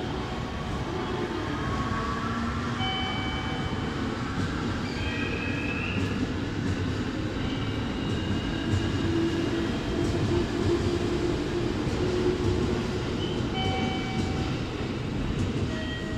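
Electric commuter train pulling out of the station platform and gathering speed past the listener: a steady rolling rumble with a motor whine that rises in pitch over the first few seconds.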